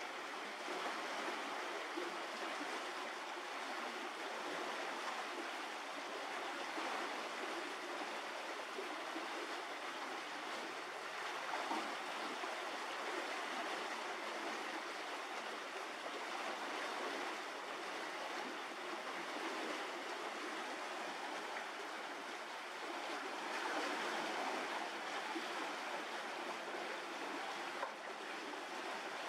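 Steady, even rushing noise like running water, with no distinct events.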